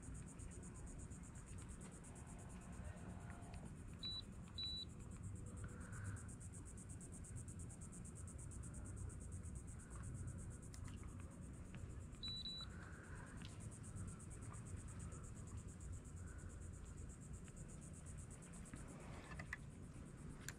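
Faint steady outdoor background noise with three short high-pitched beeps: two close together about four seconds in and one more about twelve seconds in.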